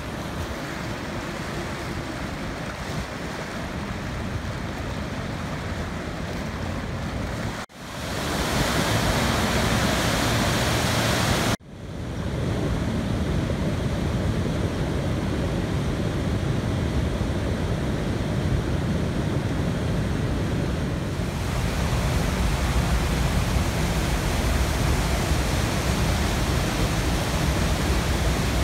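Muddy floodwater from storm runoff rushing through a normally dry desert wash and pouring over a road: a steady, loud roar of churning water. It breaks off abruptly twice, about eight and twelve seconds in, and comes back louder each time.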